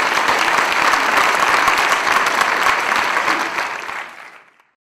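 Audience applauding at the close of a talk, steady for about four seconds, then fading out.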